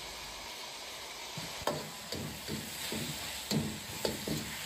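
Radish slices sizzling in a hot wok with a little added boiling water as the liquid cooks down. From about a second and a half in, a metal wok ladle scrapes and turns them in the wok in uneven strokes.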